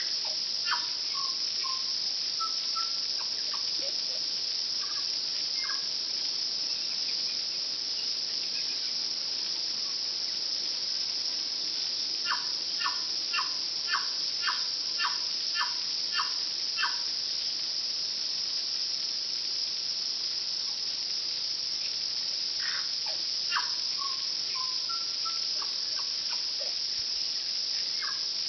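Tui singing: a phrase of clicks and short notes near the start, a run of about ten evenly spaced notes about two a second around the middle, and the opening phrase again about two-thirds through. Under it a steady high-pitched insect chorus.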